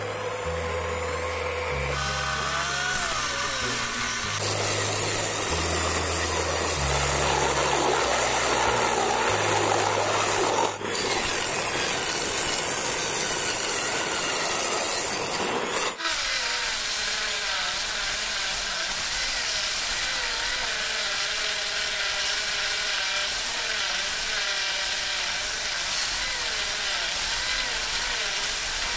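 Homemade mini table saw, a mini die grinder driving a 4-inch 40-tooth circular blade through a timing belt, running and cutting thin wood. After about sixteen seconds its whine wavers in pitch as the blade bites. A music bass line plays under it for roughly the first ten seconds.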